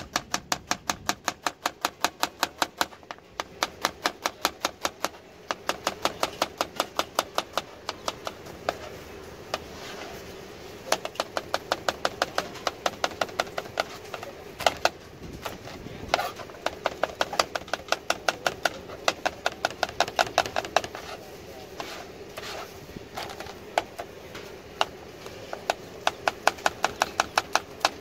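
Kitchen knife chopping vegetables on a plastic cutting board: quick, regular knocks of the blade against the board, about four to five a second, in runs broken by short pauses.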